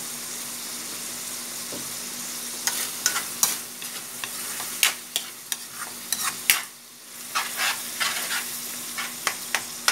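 Tuna, egg and onion sizzling in a metal wok. From about three seconds in, a spatula scrapes and clacks against the pan as the mixture is stirred, in quick irregular strokes.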